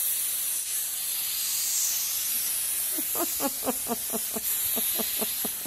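Aerosol can of party snow spray hissing in one long continuous spray. In the second half a person's voice makes a quick run of short sounds over it.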